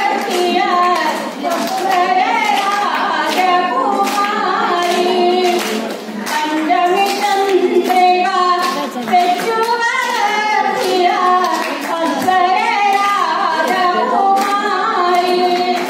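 A voice singing a melody with held, wavering notes, accompanied throughout by steady rhythmic hand-clapping keeping time.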